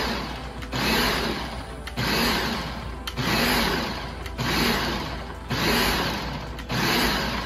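Countertop food processor pulsed over and over, about once a second, its motor spinning up and winding down with each press as it chops figs into small chunks.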